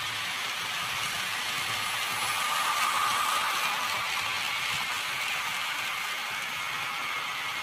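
HO scale model freight train running past on the layout track, a steady mechanical whir of wheels and motor that swells briefly about three seconds in as the wagons pass closest.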